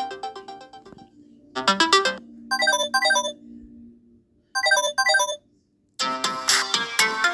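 Phone ringtones played one after another. A melodic tune fades out in the first second, then short chime phrases sound with gaps between them, and about six seconds in a louder, busier electronic ringtone starts.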